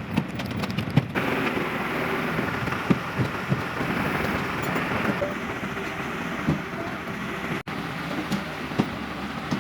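Construction-site noise: a steady rushing background with scattered knocks and taps.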